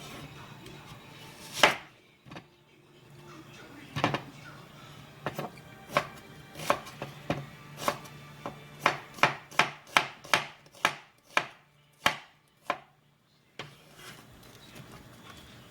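Kitchen knife chopping food on a cutting board: separate strokes at first, then a quicker run of about three strokes a second, stopping a couple of seconds before the end.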